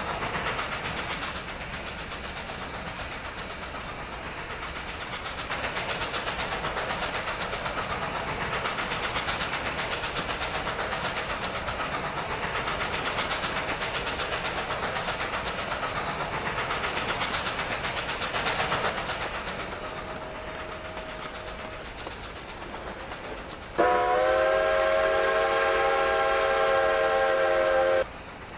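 Strasburg Rail Road No. 90, a 2-10-0 steam locomotive, under way with its train: the steady rumble and clatter of wheels on the rails. Near the end comes one long steam whistle blast of several notes sounding at once, about four seconds long and loud, which cuts off sharply.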